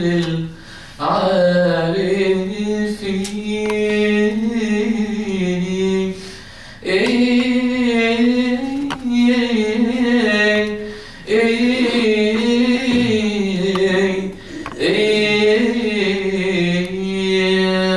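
A man's voice chanting a Coptic liturgical melody unaccompanied, in four long drawn-out phrases with short breaths between them.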